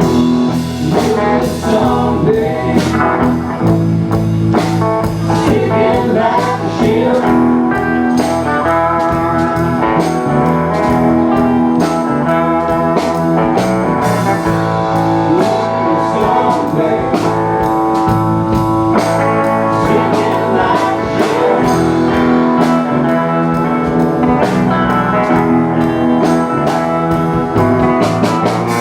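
Live band playing blues-rock led by guitar, with a steady beat.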